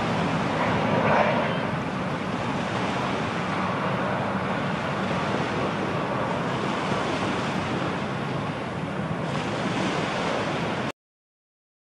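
Boeing 757 jet airliner's engines giving a steady roar as it passes low on final approach, mixed with wind on the microphone. The sound cuts off suddenly near the end.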